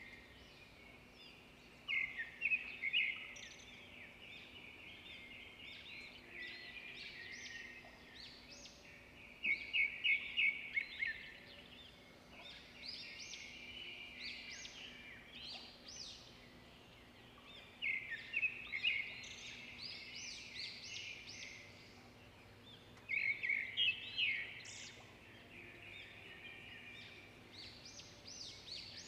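Small birds chirping in bursts of quick, high chirps that recur every few seconds, with quieter twittering between them.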